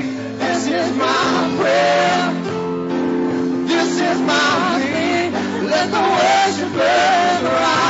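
Live gospel worship song: a singer's wavering, drawn-out phrases over held instrumental chords.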